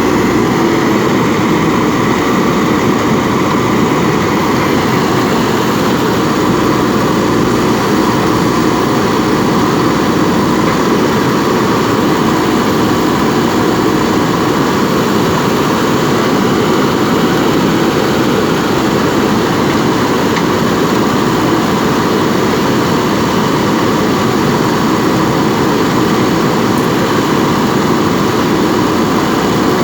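JCB backhoe loader's diesel engine running steadily while the machine works.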